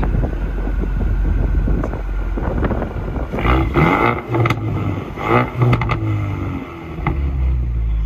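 Ford Mustang EcoBoost's 2.3-litre turbocharged four-cylinder idling through its active valve exhaust, with several quick throttle blips in the middle before it settles back to idle.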